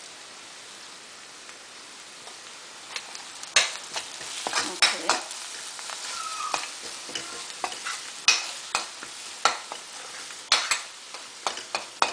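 Chopped onion, garlic and ground spices sizzling in a wok, with a metal spoon stirring them, scraping and clacking against the pan. The sizzle is faint and steady at first; the stirring starts about three and a half seconds in, with irregular sharp clacks.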